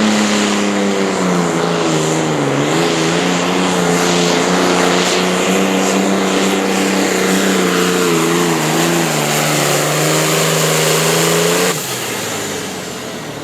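Competition pulling vehicle's engine running at full throttle as it drags the weight sled down the track, its pitch wavering. The engine cuts back sharply about twelve seconds in as the run ends.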